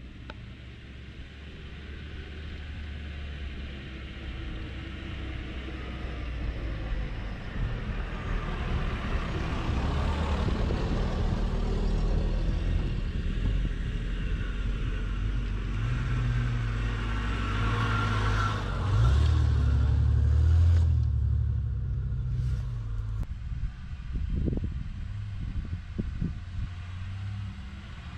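Off-road 4x4 SUV engine running as it drives rough ground, building up and loudest for a few seconds past the middle, then easing off. A few short knocks near the end.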